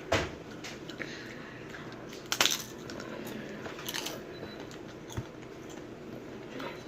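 A few short knocks and clicks over low steady room noise: a sharper one right at the start, another about two and a half seconds in, and smaller ones later.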